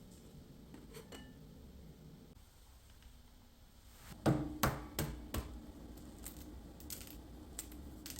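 Kitchenware being handled: a few sharp clinks about four to five and a half seconds in, the first ringing briefly, with lighter ticks around them.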